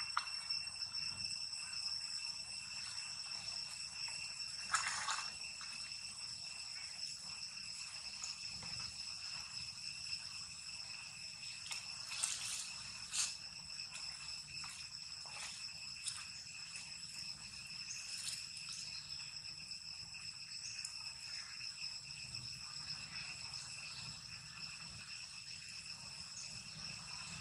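A steady high-pitched insect chorus of a few unchanging, ringing tones in the forest background, with a few brief clicks over it about five seconds in and twice around the middle.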